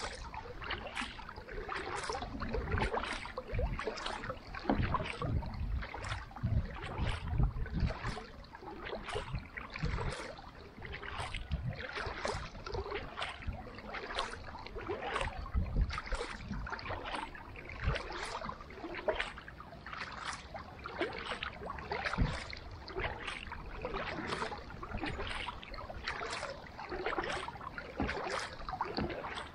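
Carbon kayak paddle blades dipping into lake water, alternating sides in an even rhythm of about one splash a second. There are some low thumps in the first half.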